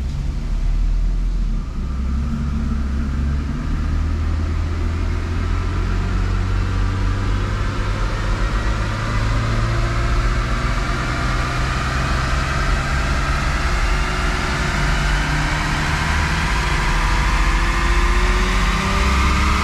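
Lexus SC300's naturally aspirated 2JZ-GE 3.0-litre straight-six under load on a chassis dyno, heard from inside the cabin. Its pitch rises slowly and steadily as the revs climb from about 1,000 to over 3,000 rpm. It is running with the air filter removed and the airbox lid closed.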